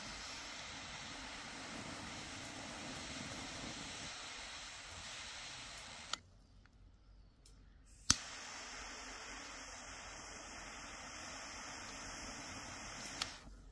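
Butane jet torch lighter hissing steadily as its flame burns. It is shut off with a click about six seconds in. About two seconds later a loud click of the ignition relights it and the hiss resumes, until it is shut off with another click near the end.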